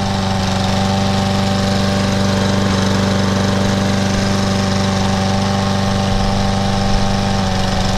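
Briggs & Stratton 550EX Series 140cc engine on a walk-behind lawn mower, running steadily. The mower shakes a little from rope wrapped around the blade adapter, and by the owner's account it does not run as it should, with a very dirty air filter.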